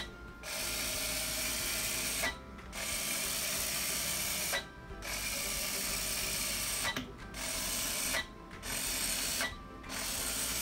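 Bee-Bot floor robot's small geared drive motors whirring as it runs through a keyed-in program, stopping briefly between steps. The first three steps are straight moves of about two seconds each. After them come shorter steps of about a second each as it turns on the spot.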